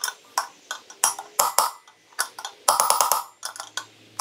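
A hammer strikes a steel socket set against a motorcycle wheel bearing, driving the old OEM bearing out of the BMW S1000RR front wheel hub. The sharp, ringing metal blows come one by one, then in a quick flurry near the end.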